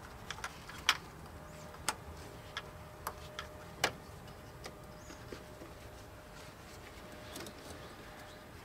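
Scattered, irregularly spaced clicks and light knocks of hand tools and metal parts being handled in an engine bay, the loudest about one, two and four seconds in, over a low steady hum.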